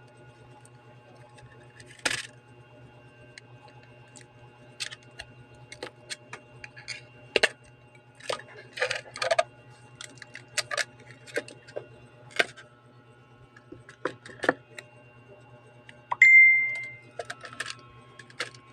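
Small metal tools and phone parts clicking and clinking irregularly against each other, over a steady low hum. About 16 seconds in, a single short ringing ding that fades out.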